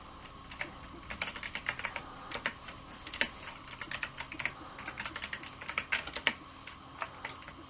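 Computer keyboard being typed on: a quick, irregular run of key clicks.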